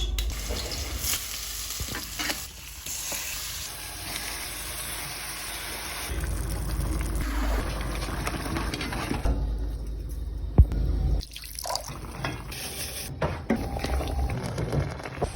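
Water running and splashing, as at a kitchen sink, with handling and stirring noises and one sharp knock about ten seconds in.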